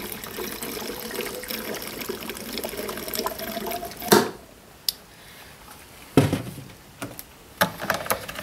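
Two-stroke fuel mix pouring from a plastic gas can's spout into a Stihl MS210 chainsaw's fuel tank, the pitch rising as the tank fills. The pour stops about four seconds in with a clunk, followed by a few knocks and clicks of handling.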